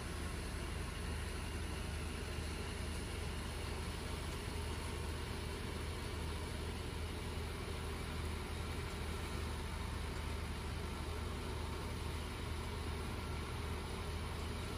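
Engine-driven paddy thresher running steadily, a deep even engine drone without let-up.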